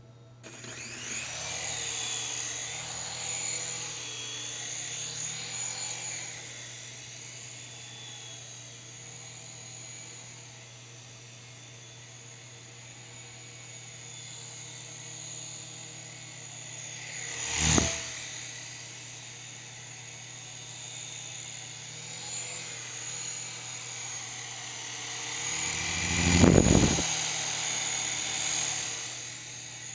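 The small electric motors and coaxial rotors of an S107G mini RC helicopter whirring in flight. The sound starts about half a second in and wavers in pitch as the throttle changes. It is loudest over the first few seconds, with two brief loud swells about eighteen and twenty-six seconds in.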